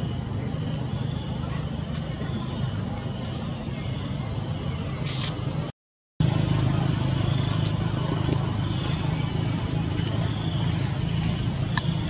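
Outdoor forest ambience: a steady insect drone over a low, even rumble, which cuts out for about half a second some six seconds in.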